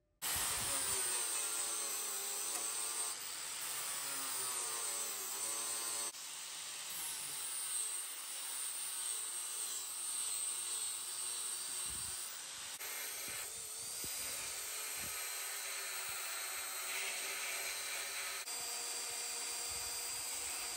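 Electric angle grinder with a flap disc running against steel weld seams, its motor pitch dipping and recovering as it bites, grinding the welds on repair patches flush. It comes in several short stretches that change abruptly, and near the end a small belt file sands the seam.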